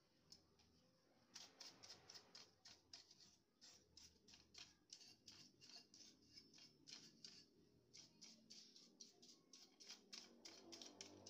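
Faint, rapid clicking and ticking, a few clicks a second with a short pause about a second in, from hands working on the plastic and metal parts of an HP LaserJet printer being taken apart.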